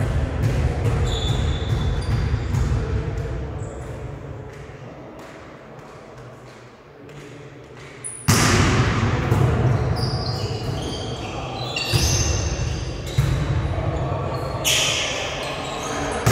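Indoor volleyball rally in a sports hall: the ball being struck and bouncing, and sneakers squeaking on the court floor, echoing in the hall. A low rumble fades midway, then comes back in abruptly and louder about halfway through.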